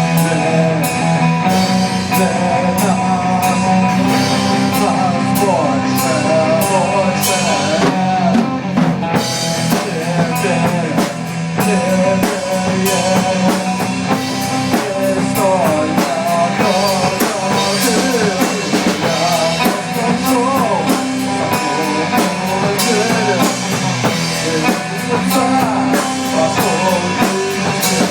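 Rock music playing: drum kit beating a steady rhythm under guitar, with a wavering melody line above.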